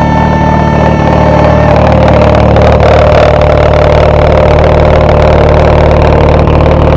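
Mazda RX-7 rotary engine running steadily at idle.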